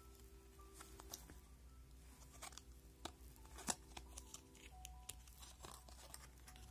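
Faint handling sounds of a backing card of clip-on earrings being turned over: a few soft clicks and rustles, over faint steady background tones that sound like quiet music.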